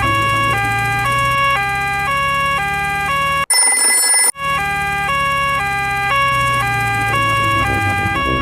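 Two-tone emergency siren sound effect, alternating between a high and a low note about twice a second. About halfway through it breaks off for under a second, and a different, higher-pitched electronic tone cuts in.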